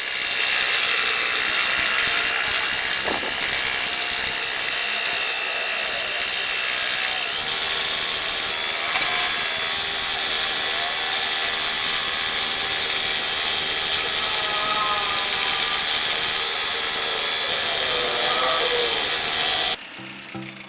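Bosch GSB 550 electric drill motor running steadily at speed, a high-pitched whine over hiss, driving a homemade scroll saw. It cuts off suddenly near the end.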